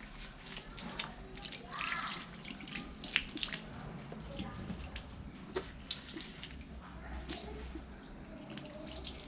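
Water trickling and dripping, with scattered light clicks and knocks.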